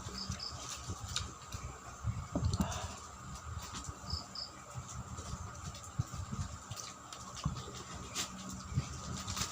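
Close-up chewing and mouth sounds of a person eating ripe mango with rice, coming as irregular soft smacks, over a steady insect drone. Two short high double chirps come near the start and about four seconds in.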